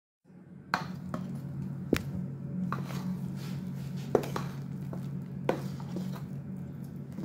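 Kitchen utensil knocking and clinking against a stainless steel bowl as whipped cream is scooped and tapped off onto melted chocolate: a series of sharp knocks over a low steady hum.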